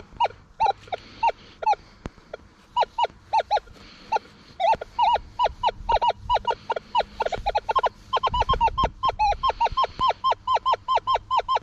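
Many short falling honk-like calls from a group of birds. They are spaced out at first and come several a second from about four and a half seconds in.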